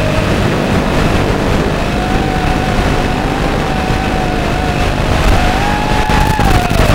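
FPV quadcopter's electric motors and propellers whining under a rushing noise, the pitch wandering up and down with the throttle; it climbs briefly near the end, then drops.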